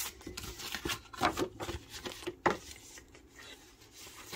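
Paper pattern leaflets rustling and crinkling as they are handled and their pages turned, in irregular crackles, the sharpest about a second and two and a half seconds in.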